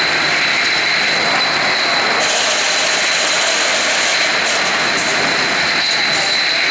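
Steady machine noise from a glass-jar palletizing line: a constant hiss with a high, steady whine. A sharper high hiss joins about two seconds in, and there is one click near five seconds.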